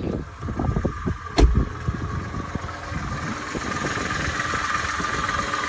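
Mercedes ML 350's gasoline V6 engine idling steadily, with a single sharp thump about a second and a half in.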